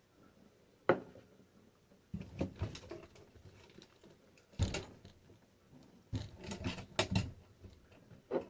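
Handling noise of small hard objects: a sharp knock about a second in, then three bouts of clattering and rattling, and a short knock near the end.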